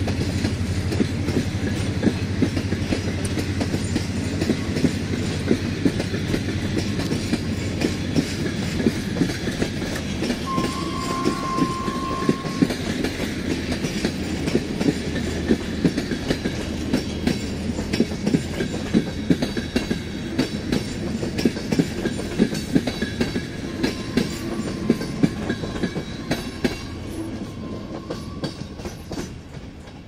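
Long passenger train of couchette coaches rolling past, its wheels clattering rhythmically over the rail joints over a low rumble. A brief steady high tone sounds about ten seconds in. The clatter fades over the last few seconds as the final coach goes by.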